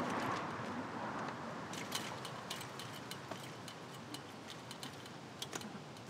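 Light metallic clicks and clinks of a chain-link fence being climbed, coming irregularly from about two seconds in. A rush of background noise fades away in the first second.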